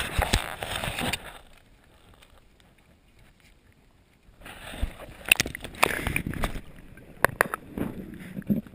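Creek water splashing and sloshing around a GoPro Hero2 in its waterproof housing as it is moved at the surface and dipped under, with a loud burst of splashing at the start, a quiet stretch, then more splashing and several sharp knocks on the housing.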